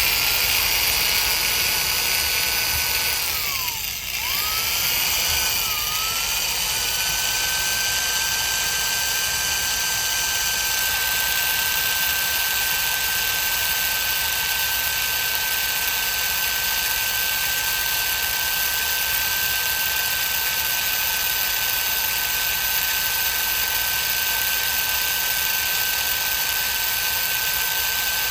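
Power drill running with a steady high whine as a bit drills into a car door lock cylinder. Its speed sags sharply about four seconds in and briefly again near six seconds as the bit catches, then recovers and holds steady.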